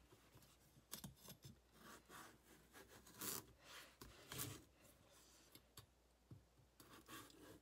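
Faint scraping and crunching of a kitchen knife cutting through the hard raw skin and flesh of a butternut squash, in short, irregular strokes.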